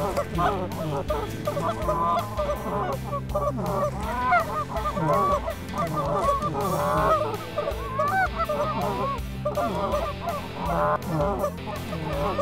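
Canada geese honking and clucking as a flock comes in: many short calls overlapping without a break.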